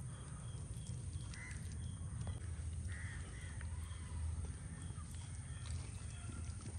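Crows cawing, two short caws about a second and a half apart, over a steady low outdoor rumble.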